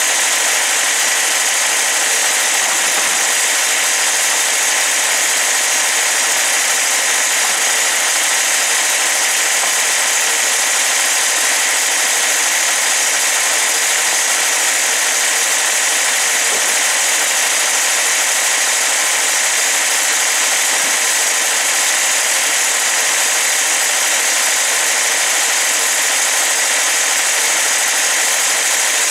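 Wood-Mizer LT40 portable sawmill's engine running steadily at a constant speed between cuts, with no sawing.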